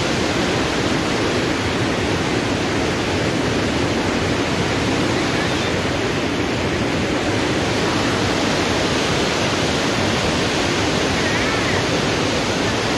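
Overflowing lake water rushing steadily.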